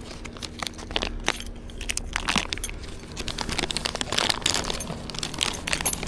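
Packaging crinkling and rustling as it is handled, with scattered sharp clicks and clinks.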